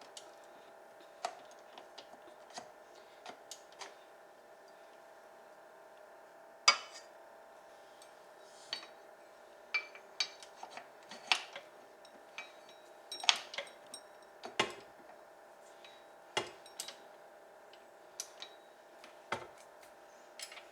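Scattered clinks and knocks of kitchen utensils and dishes being handled over a faint steady hum, the loudest knock about seven seconds in.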